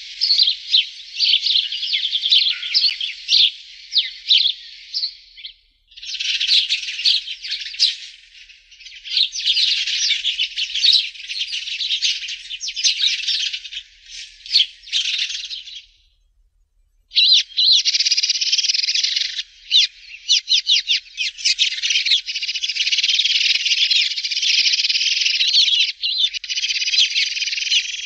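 Sparrows chirping in a dense, rapid chatter of high, overlapping chirps, breaking off briefly twice, about six and sixteen seconds in.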